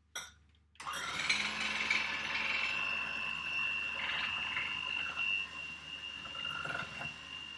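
Electric hand mixer starting up about a second in and running steadily with a high whine as its beaters whisk egg yolks in a bowl.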